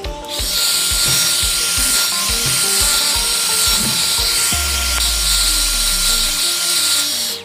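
Hand-held electric hot-air blower running: a loud, steady rush of air with a thin steady whine, heating a phone's back cover to soften its adhesive. It switches on just after the start and cuts off shortly before the end.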